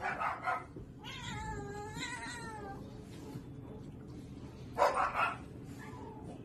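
A kitten meowing: one long, wavering meow about a second in and a fainter, shorter one near the end. Short breathy bursts come at the start and a louder pair about five seconds in.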